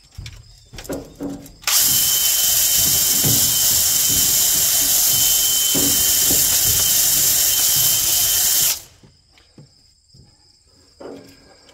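Drill spinning a 240-grit ball hone inside a cylinder bore of a Ford 429 V8 block, the abrasive balls scrubbing rust and the coolant water line off the cylinder wall. It runs at a steady speed with a high whine for about seven seconds, then stops sharply. A few light knocks come before it starts.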